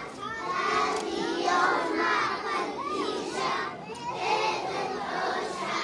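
Many young children's voices shouting and chanting together at once.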